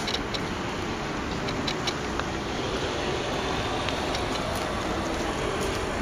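Steady outdoor background noise with a few faint clicks.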